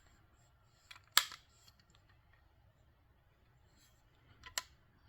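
Two sharp metallic clicks from handling a Denix non-firing tri-barrel flintlock pistol replica. The louder one comes about a second in with a lighter click just before it, and the other comes about three and a half seconds later.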